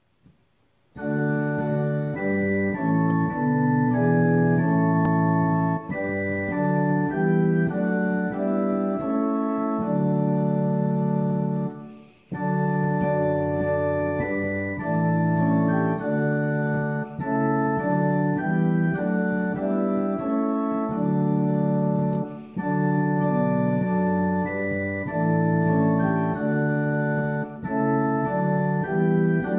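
Organ music: slow, held chords that change from one to the next, starting about a second in, with a short break near the middle.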